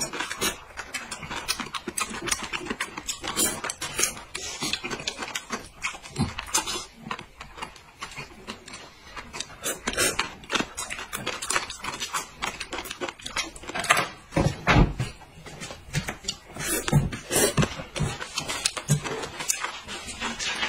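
People slurping and chewing noodles: a continuous run of short wet slurps and smacking mouth sounds, some louder than others.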